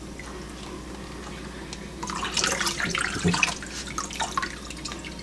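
Running water with a steady hiss, then irregular splashing from about two seconds in, as a chihuahua puppy is washed and rinsed.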